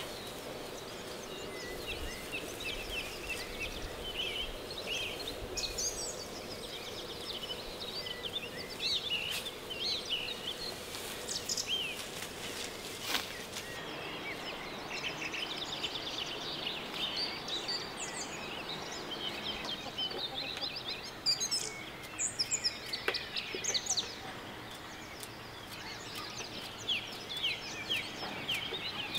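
Songbirds chirping and singing, many short calls and trills overlapping, over a steady background hiss; a few louder, sharper calls come about two-thirds of the way through.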